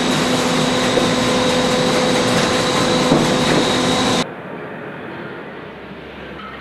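Fruit sorting machine running: a steady mechanical rattle with a hum and a high whine, and a few clicks. It cuts off suddenly about four seconds in, replaced by a quieter, duller machine noise.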